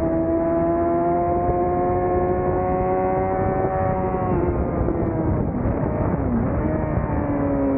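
Suzuki GSX-R600's inline-four engine running at high revs on track, its pitch climbing slowly and steadily, then breaking up and wavering about halfway through as the revs change. A steady rush of wind noise runs underneath.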